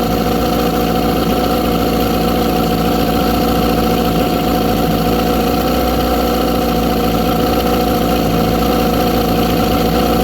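1997 Tracker 40 hp outboard motor made by Mercury idling steadily.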